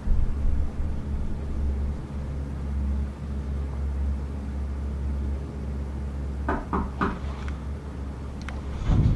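Steady low rumble with a few short knocks about six and a half to seven seconds in and a thump near the end.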